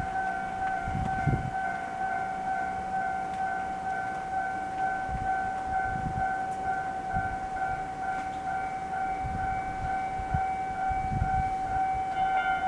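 Railway level-crossing warning alarm ringing in a fast, evenly repeating electronic tone, signalling an approaching train. Near the end more tones join and it grows louder.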